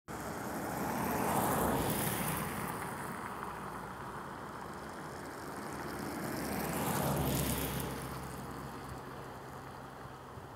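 Rushing engine noise from passing vehicles, swelling twice, about a second and a half in and again around seven seconds, with a low steady hum under the second swell.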